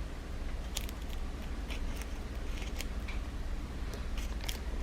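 Irregular small clicks and crackles of shattered phone screen glass being prised off the frame, over a steady low hum.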